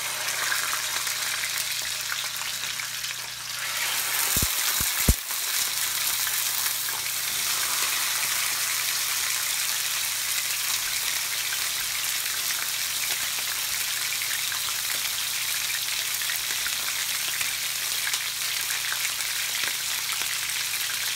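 Raw chicken breasts, freshly laid in, sizzling in hot olive oil in a stainless steel frying pan: a steady frying hiss. A few sharp knocks about four to five seconds in, the last one louder than the frying.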